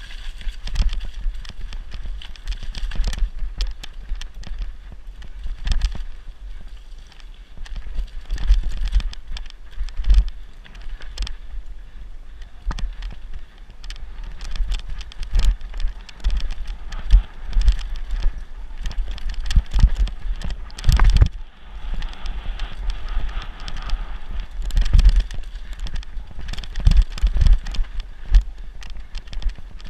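Mountain bike descending a rough dirt trail at speed: tyres on dirt and roots, and the bike clattering and rattling with irregular sharp knocks over bumps, with a steady low wind rumble on the microphone.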